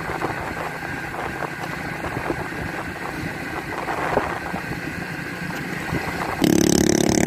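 Steady rush of motorcycle riding noise, engine and wind together. About six seconds in, a motor rickshaw's engine comes in suddenly, loud and close.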